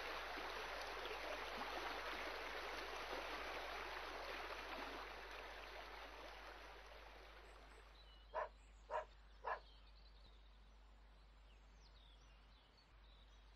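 Water rushing down a stepped concrete spillway channel, fading away over several seconds. A little past the middle comes three short dog barks, about half a second apart.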